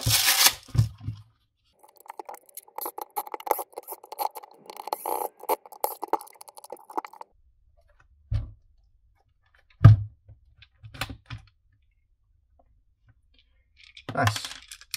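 A short rip as a fabric screwdriver-bit roll is opened. Then about five seconds of a Milwaukee M18 impact driver backing out the sander housing's screws in quick bursts. A few knocks follow as the plastic housing is handled, and a clatter near the end as the clamshell comes apart.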